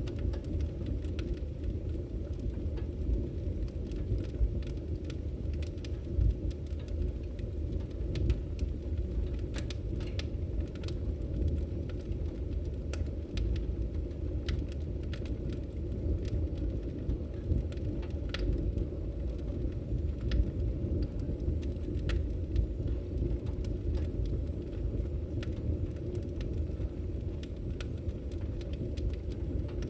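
Wood fire burning in a fireplace: a steady low rumble of the flames with frequent short, sharp crackles and pops.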